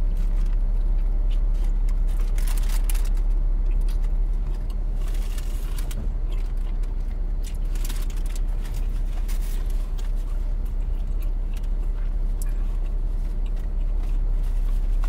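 Steady low rumble of a parked car's engine idling with the air conditioning running. The crinkle of a paper sandwich wrapper being handled comes through a few times.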